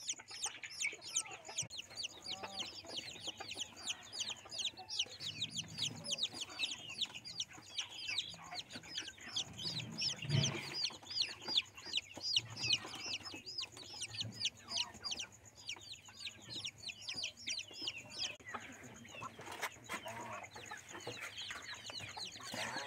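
Several chicken chicks peeping: a continuous stream of short, high, falling peeps, several a second. A few soft low sounds come in beneath them around the middle.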